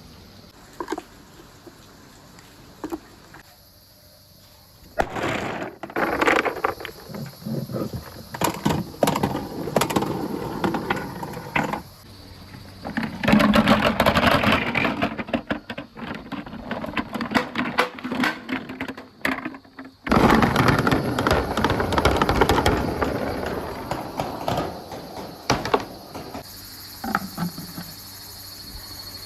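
Marbles rolling and clattering down a marble run: a rolling rumble thick with quick clicks and clacks. A few lone clicks come first, the rolling starts about five seconds in, and it breaks off briefly twice before tailing off near the end.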